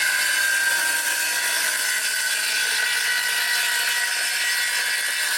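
A power tool running steadily with a high-pitched whine over a hiss, without starting or stopping.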